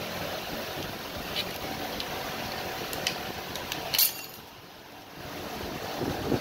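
Circlip pliers working a snap ring on a gearbox shaft: a few light metal clicks, the sharpest about four seconds in, over steady background noise that dips briefly after it.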